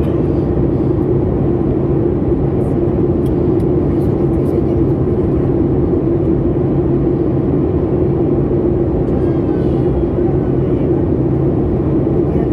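Steady drone of a Boeing 737 MAX 8 in flight heard inside the cabin: airflow and CFM LEAP-1B engine noise, even and unchanging, with a low steady hum.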